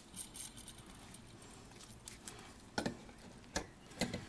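Brass clock movement plates clinking and knocking as they are handled and set down on a wooden board: a few light, separate clicks, most of them in the second half.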